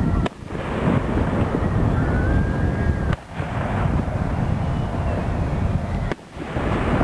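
Aerial fireworks shells bursting, three sharp booms about three seconds apart, over a steady low rumble.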